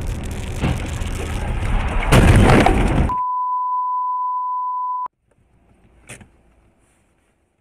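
Dashcam audio of a car at highway speed: steady road and engine noise, then a loud crash with breaking sounds about two seconds in as the car hits a bridge railing. A steady high beep follows for about two seconds and cuts off abruptly, leaving near silence with one faint click.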